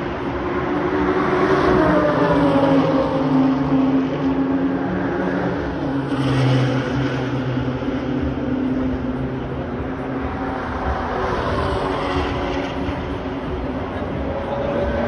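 Race car engines passing along a circuit straight one after another, swelling and fading as each goes by, their pitch shifting as they approach and pass.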